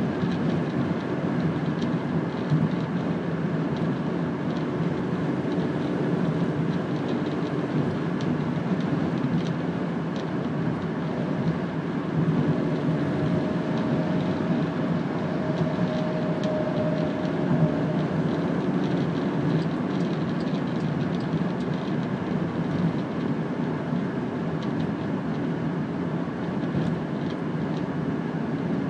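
Steady road and engine noise of a car cruising at motorway speed, heard from inside the car. A faint steady whine joins for a few seconds midway.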